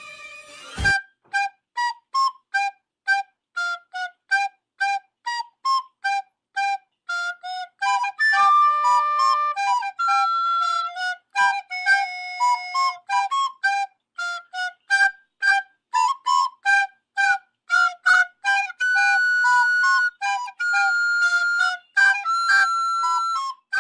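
Solo flute melody played in short, detached notes with a few longer held notes in between.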